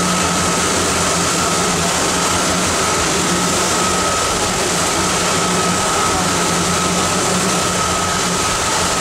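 Tour boat running steadily under way: a constant engine drone mixed with the rush of water from its wake, with a thin steady high whine.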